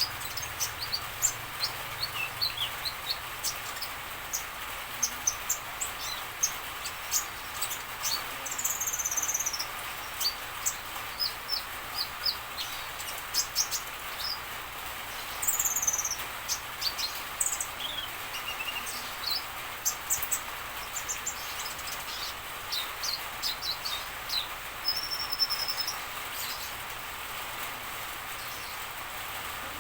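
Kolibri ninja (Van Hasselt's sunbird) singing a busy string of short, high-pitched chirps, quick trills and falling notes, over a steady background hiss.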